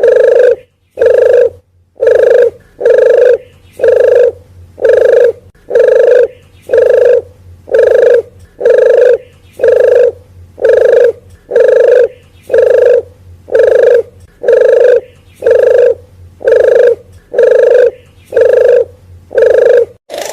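Lure recording of a puter geni wild dove's coo: one short, loud, low note repeated steadily about once a second.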